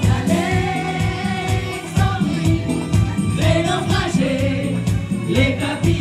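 Background music: voices singing over a steady beat.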